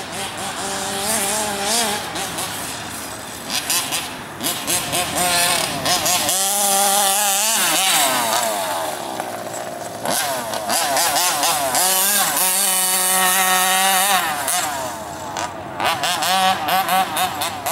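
FG large-scale radio-controlled monster truck's small two-stroke petrol engine revving up and down as it drives laps, its pitch rising and falling. It is loudest in two stretches, about six and about twelve seconds in, as the truck runs close by.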